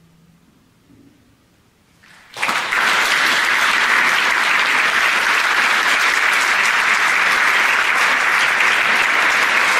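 Concert audience applauding, breaking out suddenly about two seconds in and holding steady and loud.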